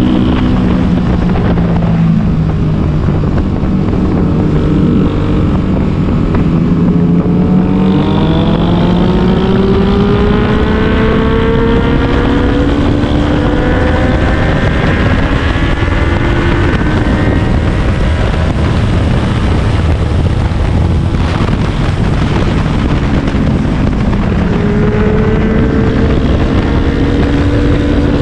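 Sportbike engine and exhaust heard from the rider's seat while riding. The engine note holds fairly steady at first, then climbs in pitch as the bike accelerates from about a third of the way in, and rises again near the end. Wind buffets the microphone throughout.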